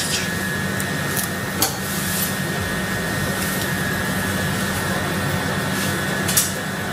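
A steady mechanical hum runs throughout, with a few light metallic clicks and knocks as a tubular water-heater heating element is handled and slid into the tank's flange opening.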